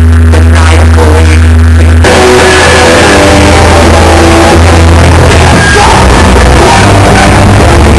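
A hardcore punk band playing live and very loud. Heavy bass notes carry the first two seconds, then the full band comes in with distorted guitars and drums, and the vocalist shouts over it.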